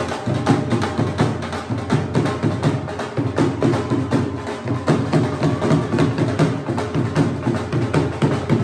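Dhol drum played in a fast, dense beat of sharp strokes, with music underneath.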